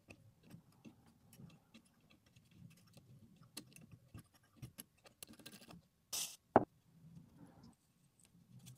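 Metal pick scraping and clicking inside an iPhone's Lightning charging port as it digs out packed lint: many small ticks and scratches, a short rasping scrape a little after six seconds, then a sharp click, the loudest sound.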